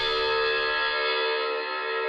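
A sustained ringing tone with many overtones, slowly fading out, with a low rumble beneath it that stops about a second in.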